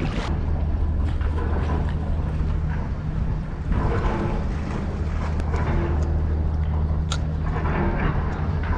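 Steady low engine hum, like a moored boat's engine or generator running, with a few faint sharp clicks over it, one clearer about seven seconds in.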